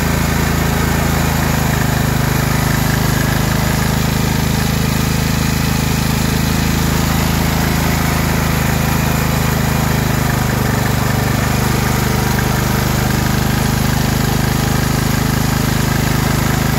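Generac MegaForce 6500 portable generator's engine running steadily under an electrical load, its note shifting slightly about ten seconds in.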